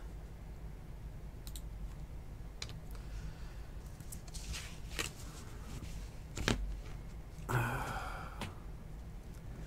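Scattered clicks and taps from handling trading cards in hard plastic top loaders and sleeves, with a few computer keyboard key presses. A sharper click about six and a half seconds in and a longer rustle a little later.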